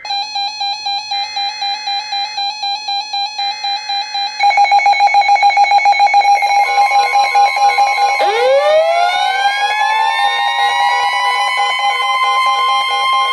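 Emergency alert tones on a NOAA Weather Radio broadcast announcing a flash flood warning: fast electronic beeping, broken at first by short screeching blasts of the SAME data header a second apart. About four seconds in the beeping turns louder. A steady warning tone near 1 kHz comes in about six seconds in, and about eight seconds in rising siren-like tones join and level off into steady high tones.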